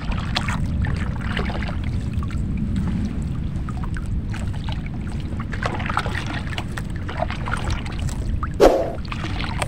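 Steady low rush of wind and water around a small wooden outrigger fishing boat at rest on the sea, with a few faint knocks, and a brief louder sound near the end. No engine is running.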